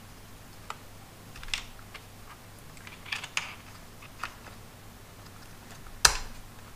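Small plastic clicks and scrapes from handling the white plastic rear housing of a car instrument cluster and fitting parts into it. A single sharp knock about six seconds in is the loudest sound.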